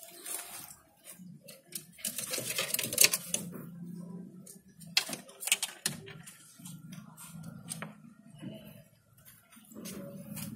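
Irregular light clattering and knocking on a wooden hutch's bamboo-slat floor as a rabbit shifts about on it and is handled.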